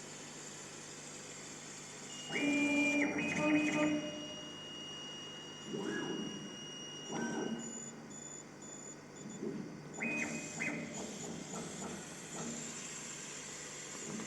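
Stepper motors of a KAMACH 1610 CO2 laser machine whining through short moves of the laser head. Each move starts and stops abruptly: a longer one about two seconds in, then shorter ones a few seconds apart. Under them runs a steady hum of fans.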